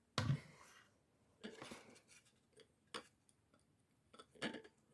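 A few faint, scattered clicks and light taps from handling a small circuit board and soldering iron while soldering the pins of a 555 timer chip.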